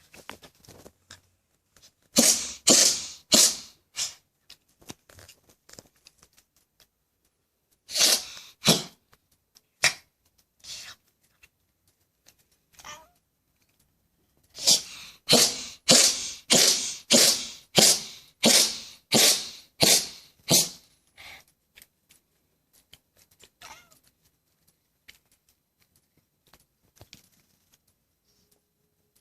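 A sick house cat sneezing repeatedly in three bouts of short, sharp sneezes: a few at first, then a shorter bout, then a long run of about ten in quick succession.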